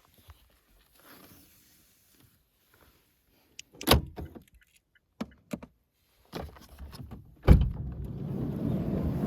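Car door handling: a few clicks and a latch-like snap, then a heavy thump followed by about two seconds of steady motor whirr, as of a kei car's power sliding door moving.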